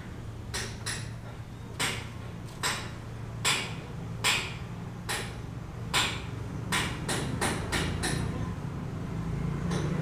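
Hammer blows on a building site: about a dozen sharp strikes, at first roughly a second apart, then coming faster and stopping shortly before the end, over a low steady hum.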